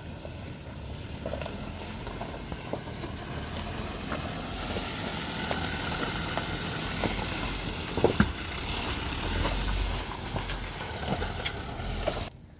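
Jeep Wrangler Unlimited on 33-inch off-road tires crawling slowly over a rocky trail: low engine rumble with the tires crunching and popping over loose stones. It gets louder as the Jeep draws close, with a sharp crack about eight seconds in.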